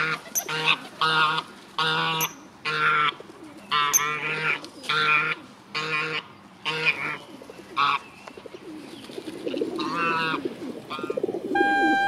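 Domestic greylag-type goose calling in a rapid series of short, harsh honks, about a dozen in eight seconds, with its neck stretched low towards a coot in a threat posture. Afterwards there is a softer rustling, and near the end music with a stepping melody begins.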